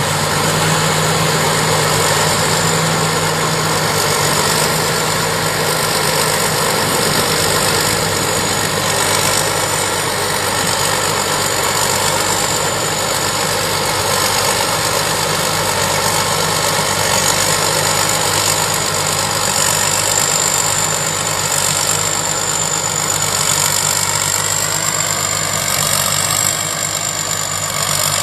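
Combine harvester's diesel engine and machinery running steadily, with a thin steady high whine over the engine; the engine note dips slightly near the end.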